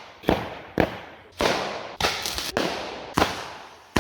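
Firecrackers going off one after another: about six sharp bangs in four seconds, each followed by an echoing tail.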